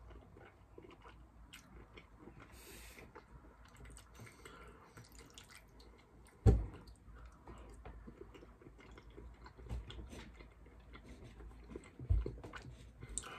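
Close-miked chewing and mouth sounds of someone eating pasta with meat sauce, with many small wet clicks. Two short low thumps, about six and a half seconds in and again near the end.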